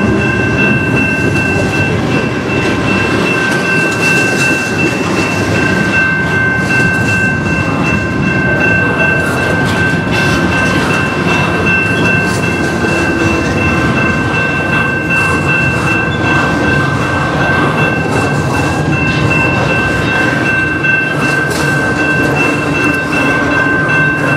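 Double-stack intermodal well cars rolling past: a steady rumble of steel wheels on the rails with light clicking over the joints. A steady high ringing, the level-crossing bell, sounds over it.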